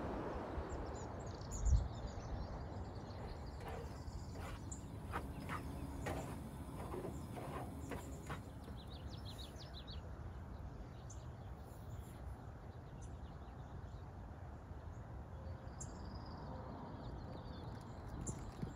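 Small birds chirping and twittering in short scattered calls over a steady low outdoor background rumble, with one dull thump about two seconds in.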